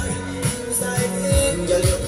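Recorded music playing over a loudspeaker: deep bass notes that slide downward several times a second under held notes and a steady, bright percussion beat.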